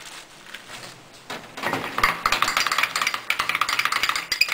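A spoon beating egg white and cornflour in a china teacup, clinking rapidly against the cup from about a second and a half in.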